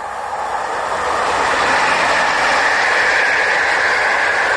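PKP Intercity passenger train, an electric locomotive hauling coaches, passing close by. The rushing rumble of wheels on rail grows louder over the first second or so, then holds steady.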